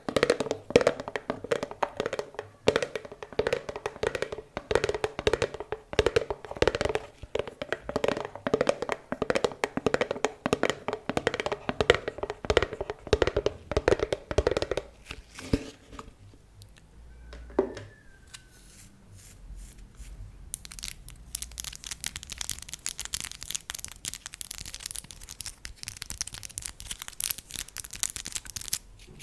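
Rapid ASMR fingertip tapping on a hard object with a hollow ring, steady for about fifteen seconds. It thins to a few scattered clicks and a brief squeak, then changes to a fast, fine, crisp scratching or crackling for the last third.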